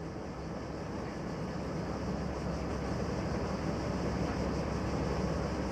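An engine running steadily with a low hum and a rush of noise, slowly getting louder as it speeds up.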